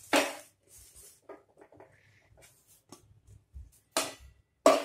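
A non-stick kadhai being tipped and scraped out into a plate: a few sharp knocks of the pan with light scratching between them as the roasted grated coconut is emptied. The loudest knocks come at the start, about four seconds in and near the end.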